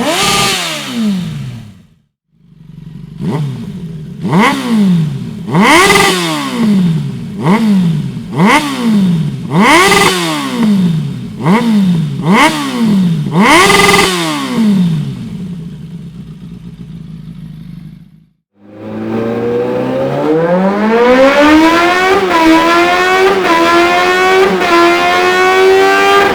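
A 1997 Suzuki GSF 600 S Bandit's inline-four engine through a Dominator full exhaust system, blipped repeatedly: about one sharp rev a second, each rising and falling back, before it settles. After a brief break it runs up through the revs in one long steady climb with a few small dips.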